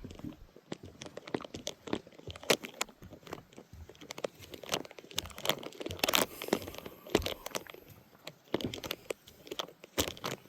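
Close, irregular crunching and crackling rustles, a rapid scatter of sharp clicks with no steady rhythm, loudest around the middle.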